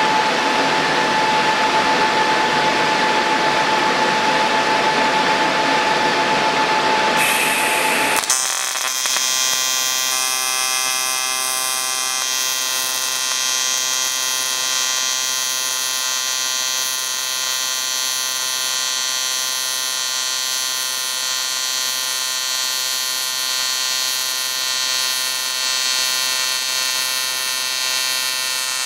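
AC TIG welding arc on aluminium, from an ESAB Rebel 205ic, buzzing steadily from about eight seconds in. Before that there is a steady hiss with a faint high tone.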